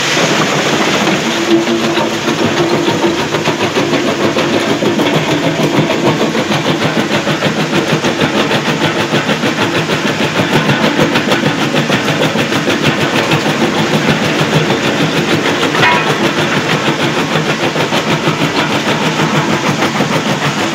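24×16 SMG jaw crusher running and crushing rock: a loud, steady mechanical clatter with a fast, even pulse.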